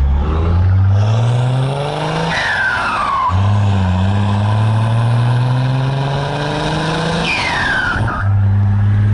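Chevrolet Silverado's six-cylinder turbo diesel accelerating hard through two gears, its note rising steadily in each, with a falling whistle at each gear change. Wind rushes past the microphone while the truck pulls, and the engine settles to a steady note near the end.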